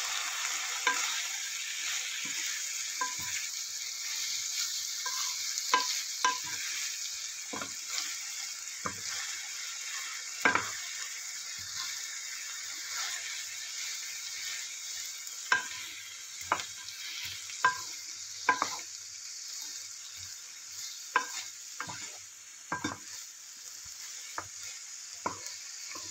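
Bean sprouts, carrots and green bell pepper stir-frying in oil in a non-stick pan: a steady sizzle, broken by irregular knocks and scrapes as a wooden spatula tosses the vegetables against the pan.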